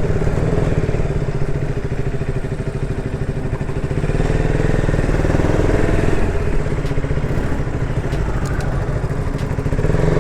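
Motorcycle engine running steadily at an even speed.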